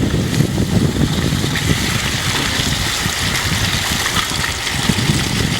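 Steady engine and road rumble of a car being driven.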